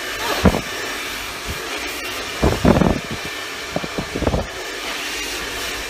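Hand-held hair dryer blowing steadily on a lock of hair being worked through with a round brush during a blow-dry. The rush of air has a few short, louder surges, about half a second in, around two and a half seconds and near four and a half seconds.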